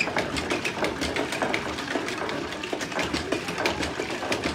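Hand-lever water pump being worked, its handle and mechanism clicking and clanking rapidly, with water splashing into a plastic jerry can.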